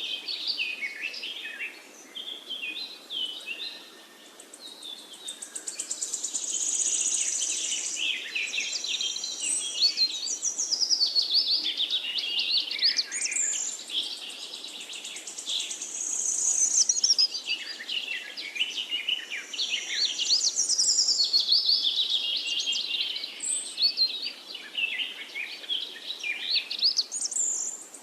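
Several songbirds singing and chirping at once, with overlapping quick trills and chirps and a brief lull a few seconds in, over a faint steady background hiss.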